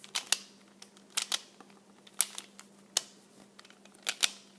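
Plastic Pyraminx puzzle being turned through a move sequence: sharp clicks as its layers snap round, several in quick pairs, about one turn a second.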